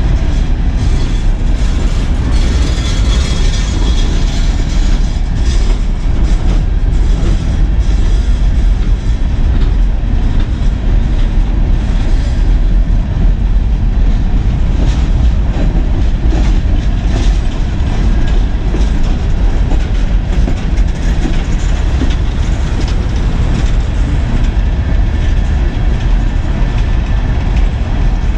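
Empty coal hopper cars of a CSX freight train rolling past close by: a loud, steady rumble of steel wheels on rail with frequent short clacks and rattles.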